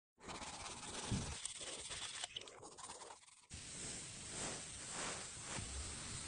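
A steady hiss with a faint crackle in it. It breaks off and starts again with a slightly different texture about three and a half seconds in, as at a cut.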